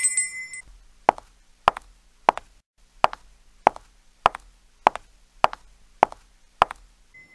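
Outro animation sound effects: a bright chime fading out, then a regular run of about ten short pops, roughly one every 0.6 seconds.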